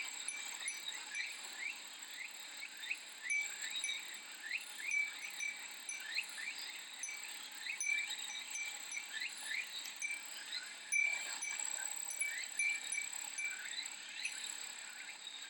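Summer soundscape of cicadas and a Japanese wind chime (fūrin): a steady, high cicada drone with many short rising chirps, and the chime ringing in short tinkles now and then.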